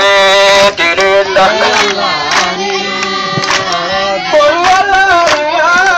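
A voice singing a chant through a handheld megaphone, holding long wavering notes, with a few sharp knocks or claps.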